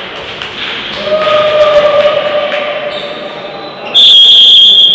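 Referee's whistle: one loud, shrill blast about four seconds in, lasting about a second. Before it, ball thuds and shouts echo through the sports hall.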